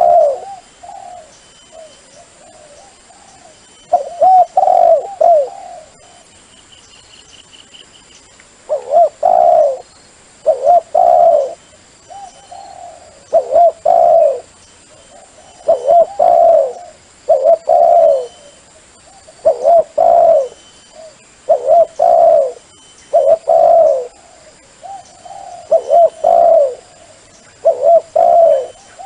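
Dove cooing over and over in short phrases of two or three low coos, roughly one phrase every two seconds, with a longer pause early on. This is the kind of dove call played to lure wild doves in.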